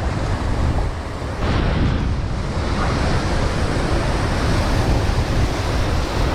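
Wind rumbling on the microphone over steady surf, a continuous noise with no distinct events.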